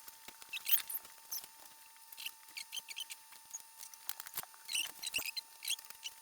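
Small plastic building-block pieces clicking and rattling as they are sorted and pressed together, a rapid irregular run of light ticks and clicks.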